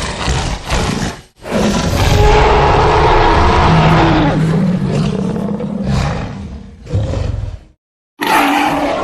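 Layered creature roar sound effect mixed from animal and monster roars. A couple of short growling bursts lead into one long roar lasting about five seconds, then a short burst and a fresh roar starting near the end.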